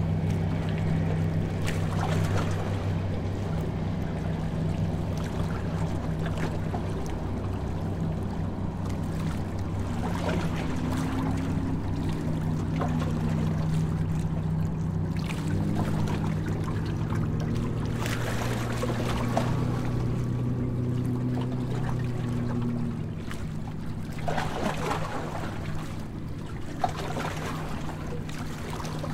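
A harbour tour boat's engine running with a steady low hum, with water rushing and splashing along the hull.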